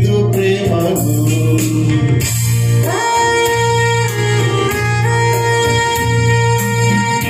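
A devotional song played on electronic keyboard and tabla. A man sings over the first two seconds or so. The keyboard then takes a solo: a lead melody slides up into long held notes over a steady tabla rhythm.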